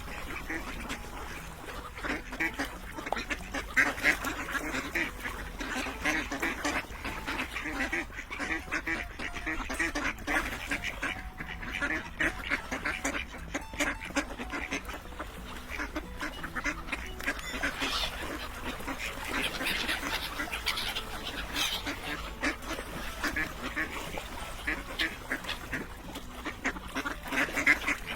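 A group of ducks quacking over and over, many short calls overlapping in a steady chatter.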